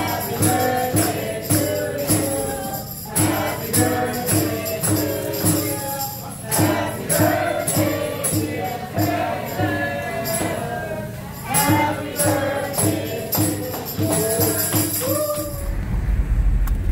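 Restaurant staff singing a birthday song together in chorus over a steady beat of clapping and percussion. About a second before the end it cuts to the low rumble of a car driving.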